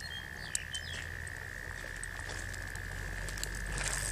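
Hooked grass carp splashing and thrashing at the water's surface close to the bank, with a louder splash near the end. A steady high whine runs underneath.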